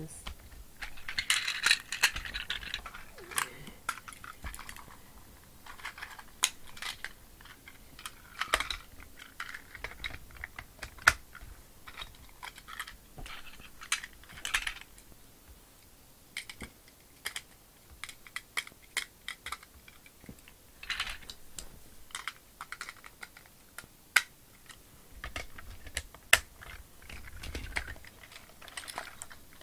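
Plastic parts of a Power Rangers Megazord toy clicking and clacking as it is handled and transformed quickly, with many irregular sharp clicks and short spells of rustling.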